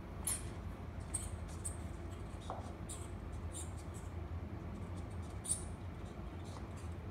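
Faint scratching and scattered soft clicks from a tiny toy poodle pawing, rolling and nosing about on a fabric mat, over a steady low hum.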